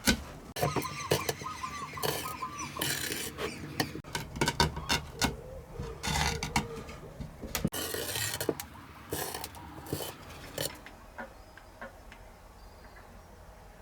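Irregular clinks, knocks and scrapes of hard objects being handled on a workbench, with a few short squeaks, thinning out after about ten seconds. Faint bird chirps can be heard near the end.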